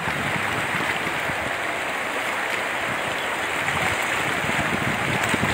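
A shallow river rushing over rocks in small rapids: a steady, even rush of water close by.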